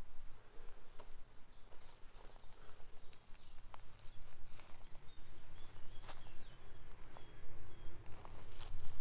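Footsteps and small irregular clicks on a woodland path, with faint bird chirps in the background.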